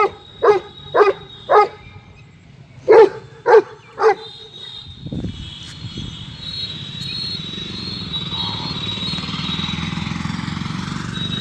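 A dog barks seven times in two quick groups of short, loud barks. From about five seconds in, a steady low rumble slowly builds up.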